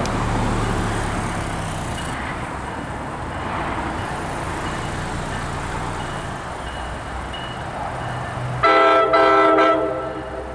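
An approaching NJ Transit train rumbles in while the grade-crossing bell rings faintly, then near the end it sounds its multi-chime air horn, a Nathan K5LA, in two quick blasts lasting about a second together.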